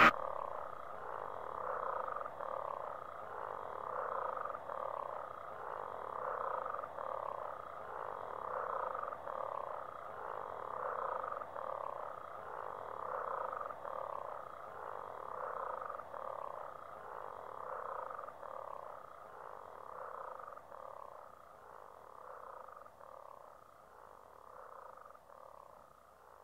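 Outro of an industrial track on a CD recording: after the music cuts off, a looped animal-like call repeats steadily, each a short falling sweep, a little under twice a second, and slowly fades out. It sounds thin, with no high end.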